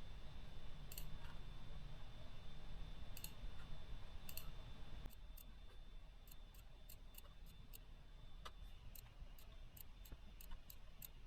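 Computer mouse button clicking: a few separate clicks in the first half, then a run of quicker, lighter clicks as a password is picked out on an on-screen keyboard. A low hum sits under the first half.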